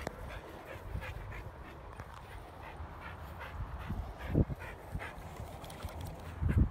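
Short animal calls repeated many times in quick succession, with a couple of loud low thumps about four and a half seconds in and near the end.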